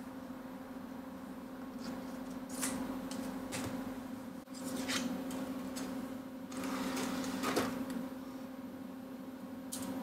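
CDs in paper sleeves being handled: a few bursts of paper rustling and light clicks between about two and eight seconds in, over a steady low hum from the running computer.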